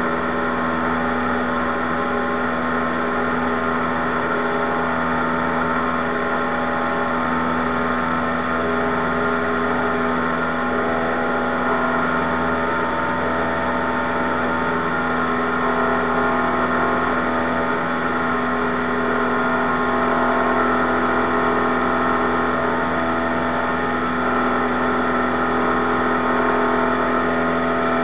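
Cessna 172's piston engine and propeller droning steadily inside the cabin during the climb after takeoff, one even tone with no change in pitch or level.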